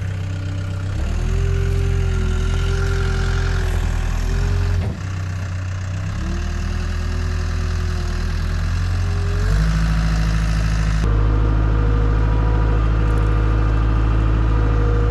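CAT 252B skid steer's diesel engine working under load, its note stepping up and easing off several times as the machine pushes against a dead tree. A whine rises and falls along with the engine.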